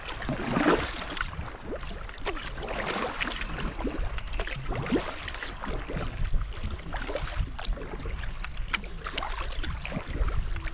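Water splashing and trickling around a sea kayak under way: paddle strokes and water running off the blades, as an irregular run of small splashes.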